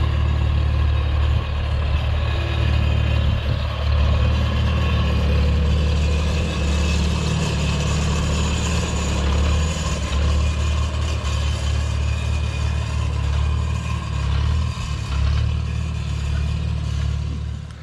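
Vintage Farmall tractor's engine running steadily as the tractor is driven past and away.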